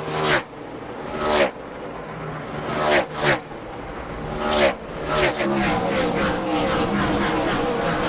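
NASCAR Cup cars' V8 engines at racing speed, several cars passing one after another with the pitch dropping as each goes by, then a steadier engine note near the end.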